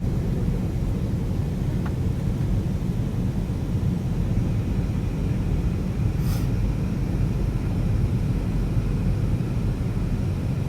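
Steady low vehicle rumble, with a faint click about two seconds in and a brief hiss about six seconds in.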